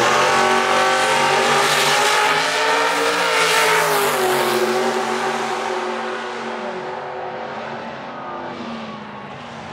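Two turbocharged drag cars launching and running at full throttle down the strip, one of them a Fox-body Mustang with a big-block Chevrolet V8 and a 118 mm turbo. The engine note climbs for the first few seconds, drops about four seconds in, then fades as the cars get farther off.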